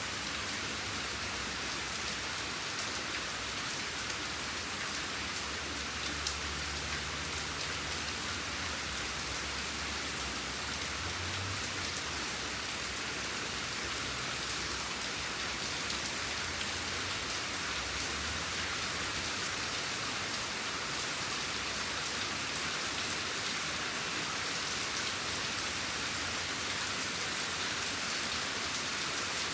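Steady rain falling, a dense even hiss with many small drop patters, and a faint low rumble now and then.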